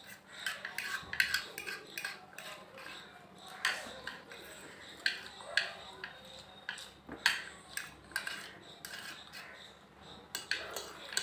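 A fork and chopsticks clinking and scraping on dinner plates as noodles are scooped up fast, in a rapid, irregular run of sharp clicks.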